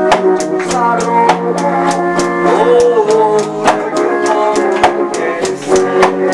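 Live band music through a microphone and amplifier: a man singing a slow pop song, with electric guitar and a steady drum beat.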